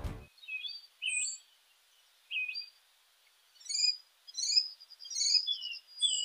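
Small birds chirping: groups of short, high chirps and quick trills separated by brief quiet gaps.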